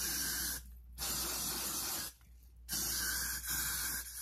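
Aerosol can of Got2b hairspray sprayed in three bursts of about a second each, onto freshly curled hair.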